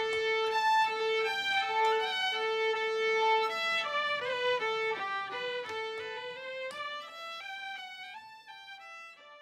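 Fiddle music: a single melody of held notes that fades out over the last few seconds.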